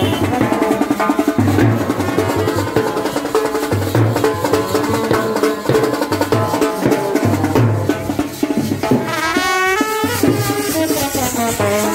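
Street brass band playing a tune: a bass drum and a side drum keep a steady beat under brass horns. A trumpet carries a wavering melody line near the end.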